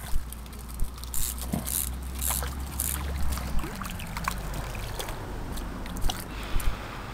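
Reeds and brush rustling, with scattered sharp crackles and clicks, as someone moves along a stream bank, over a steady low rumble on the microphone.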